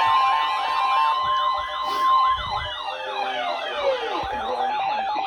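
Several sirens sounding at once, their pitch rising and falling over and over, with a steady high tone that stops about two seconds in. One siren winds down in pitch between about three and four seconds in.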